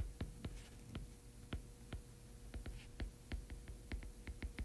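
Stylus ticking against a tablet screen during handwriting: many faint, short taps at an irregular pace, over a faint steady hum.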